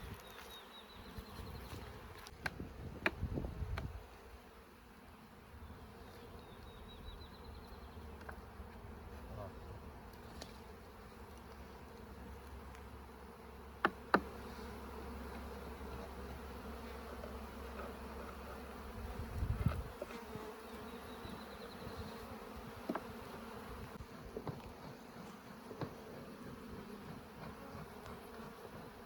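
Honeybees buzzing in a steady hum around an opened hive, with a few sharp knocks, the loudest a pair about 14 seconds in.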